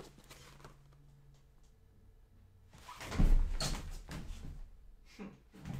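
Handling noise from a large hardcover picture book being swung around and held up: irregular low thumps and bumps with short rustles and clatters, starting about halfway through after a near-quiet stretch.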